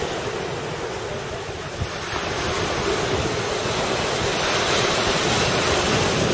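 Ocean surf breaking and washing onto a sandy beach, a steady rushing noise mixed with wind buffeting the microphone, a little louder in the second half.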